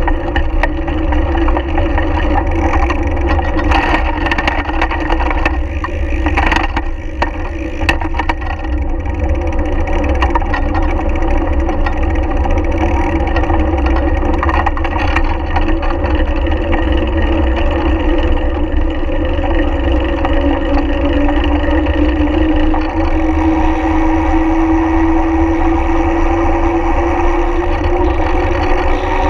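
Ride noise of a road bicycle heard from a frame-mounted action camera: constant wind rumble on the microphone and tyres rolling on asphalt, with a steady hum that rises slowly in pitch near the end. A few clicks and knocks sound between about four and eight seconds in.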